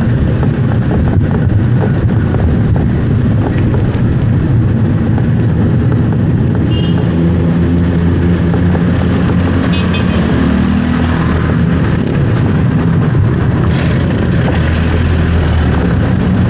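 Road traffic: a steady rumble of passing vehicles, with an engine's drone growing stronger from about halfway through.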